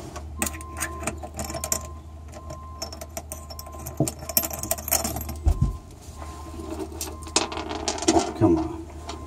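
Washers and nuts clicking and clinking as they are fitted by hand onto bolts through the underside of a boat deck, with a steady low hum underneath.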